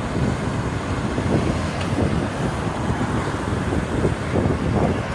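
Steady road-vehicle rumble and traffic noise, with wind buffeting the microphone.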